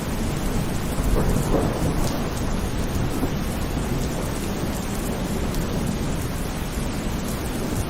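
Heavy rain pouring steadily, with a deep low rumble underneath and a slight swell in loudness about a second in.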